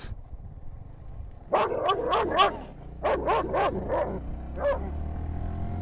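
German Shepherd barking from the front of a moving motorbike: a quick run of barks about a second and a half in, another run about three seconds in, and a single bark near the end. The motorbike's engine runs low underneath.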